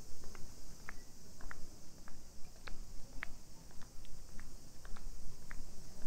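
Footsteps on a paved path, with short sharp ticks, over a steady high-pitched insect chorus.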